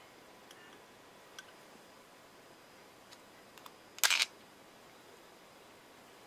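A few faint ticks of a metal stylus being handled, then about four seconds in a short cluster of sharp metal clicks as the SMART CAP stylus cap is fitted onto the end of a metal pen.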